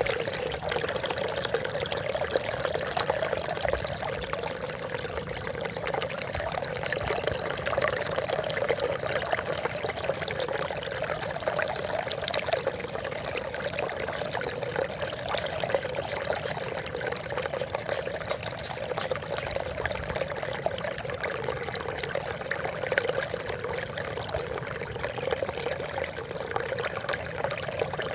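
Trickling water, a steady splashing patter that runs on without a break.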